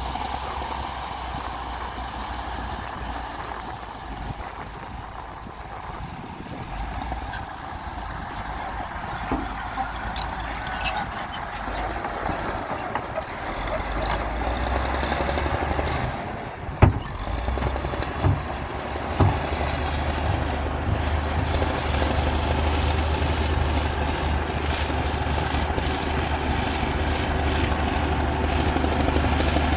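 Komatsu D60P bulldozer's diesel engine running under work, growing louder and heavier through the second half. A few sharp metallic clanks come a little past halfway.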